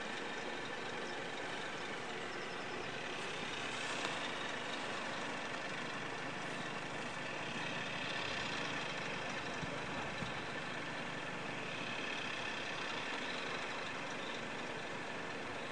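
Engine idling steadily, the running engine of the crane truck holding the windmill sail.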